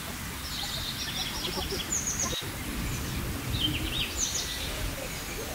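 Small birds chirping and singing in the park trees, several short bursts of quick high notes, over a steady low outdoor rumble.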